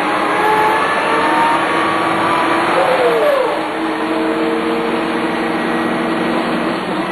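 Dennis Lance bus with a Cummins 6CT six-cylinder diesel and ZF 4HP500 automatic gearbox pulling away under power, its gearbox whine rising in pitch. About three seconds in, an upshift drops the pitch sharply, and the bus runs on at a steadier pitch and slightly quieter.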